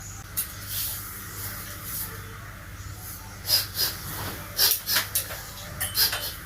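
A string of short clicks and rustles of hands handling a ring light, over a steady low hum.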